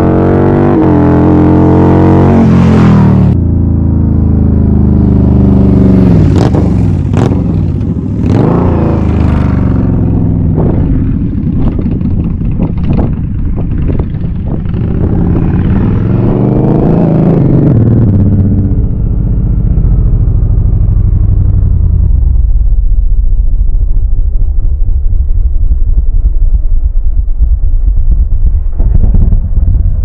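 Indian Scout Rogue's V-twin through Bassani slip-on mufflers with the insulation removed and the baffles left in. It revs up and drops back in pitch a few times, with a run of sharp cracks in the middle. In the second half it settles into a steady, loud, low pulsing rumble at low revs as the bike comes close.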